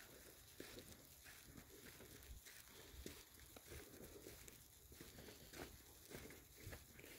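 Faint footsteps on a dirt track, a soft crunch about every half second to second.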